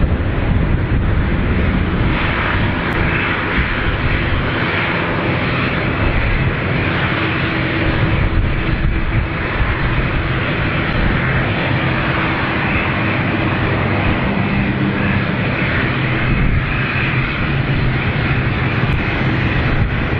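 Boeing 777 twin-engine jet airliner coming in to land, its engines giving a loud, steady roar with a few faint humming tones underneath.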